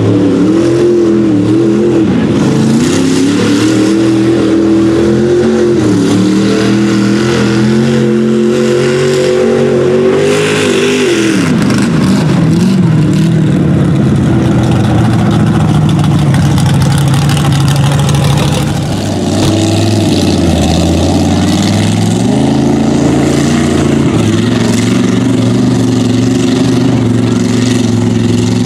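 Lifted mud bog trucks' engines revving hard through a mud pit, the pitch climbing and dropping with the throttle. About eleven seconds in the revs fall away to a lower, steadier note, then climb again a little before twenty seconds.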